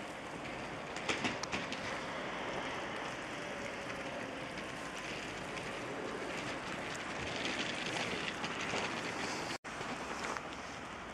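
Steady outdoor hiss of a wet winter night street, with a few sharp clicks about a second in and a brief dropout near the end where the recording cuts.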